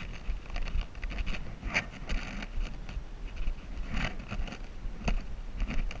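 Hiking boots stepping and scuffing on a sandstone trail with grit underfoot: irregular scrapes and taps about a second apart, over a low wind rumble on the microphone.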